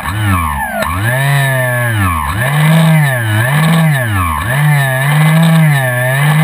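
Electric motor and propeller of an RC trainer airplane, rated 925 W and 800kv, starting abruptly and running with a whine that rises and falls in pitch several times as the throttle is worked up and down. The propeller is heard close up, from directly behind it.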